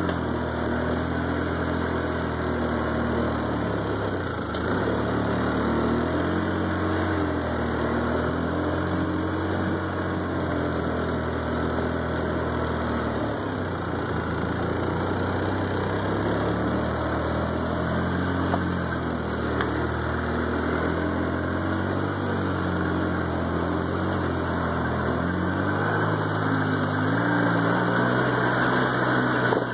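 Polaris ATV engine running as the quad is ridden, its pitch rising and falling with the throttle, higher and a little louder near the end.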